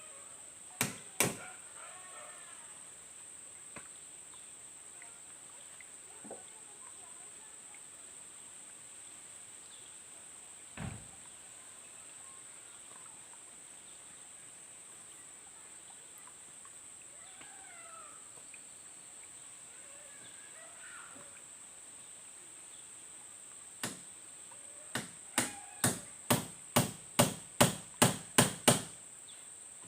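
Hammer blows on the wooden frame of a boat under construction: two strikes near the start, a duller knock midway, then a run of about ten quick blows near the end, getting louder.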